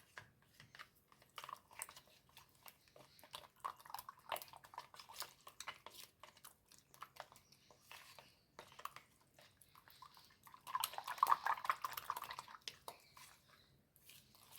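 Raw egg mixture with chopped onion and grated coconut being stirred in a bowl with a utensil: rapid irregular clicks against the bowl and wet squishing, louder and busier for a couple of seconds near the end.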